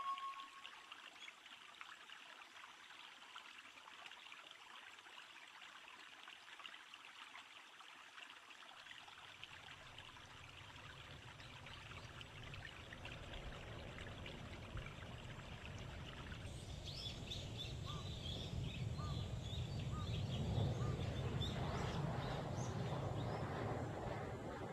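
A soft, steady hiss like running or trickling water. A low rumble comes in about nine seconds in and slowly builds, and short high chirps are heard from about sixteen seconds on.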